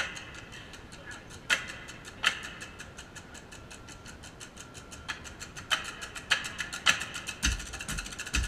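Drumsticks clicking in a fast, even patter on hard surfaces, with louder accented strikes now and then; deep drum thumps join in near the end.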